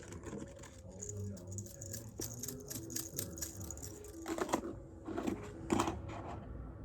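A Slinky's coils clicking and clattering as they are handled, with three louder rattles near the end.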